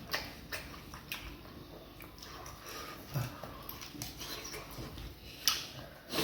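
Close-up eating sounds of fufu and soup eaten by hand: wet chewing and lip smacks with scattered soft clicks. There is a short low 'mm' about three seconds in and a louder smack a little after five seconds.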